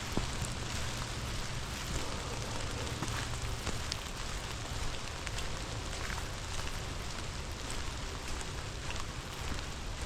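Steady rain falling, with many individual drops ticking sharply close by, as on a plastic rain poncho, over a low steady rumble.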